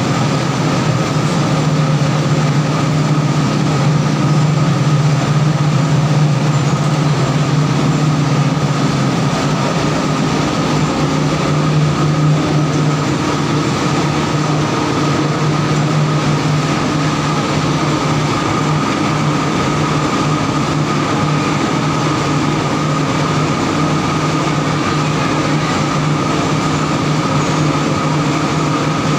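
A row of mustard oil expellers running under load: electric motors driving the screw presses through multi-V-belt pulleys. The sound is a loud, steady mechanical drone with a low hum and a fainter higher whine.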